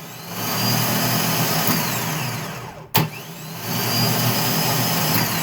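A 1999 Chevy Silverado starter motor run twice by power sent to its freshly repaired signal wire. Each run begins with a sharp solenoid click, then the motor spins with a loud whine that winds down, and the second click and spin-up come about three seconds in. The repair works.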